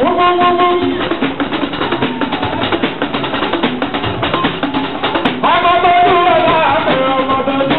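Live fuji music: a lead singer's voice over a dense drum and percussion rhythm, with sung lines near the start and again from about halfway through.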